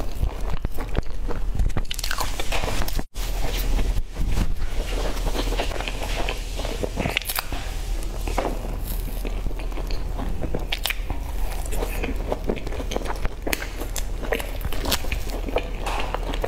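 Close eating sounds of a person biting into and chewing crisp, crumb-topped cream puffs: irregular crunching and crackling of the crust with soft chewing between. There is a brief total dropout about three seconds in.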